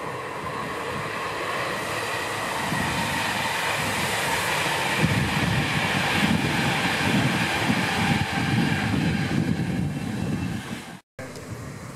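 Class 390 Pendolino electric train passing at speed over a viaduct: a steady rush and rumble of wheels on rails that grows to its loudest in the middle, then cuts off abruptly about eleven seconds in.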